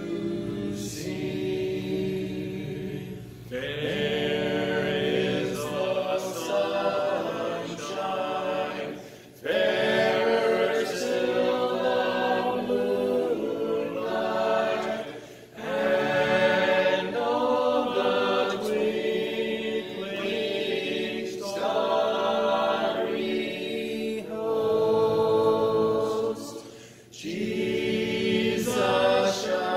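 A group of voices singing a hymn a cappella, in sung phrases with short breaks between them.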